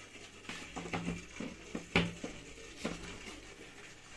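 Scattered light clicks and knocks of hands handling things at a workbench, the sharpest about two seconds in.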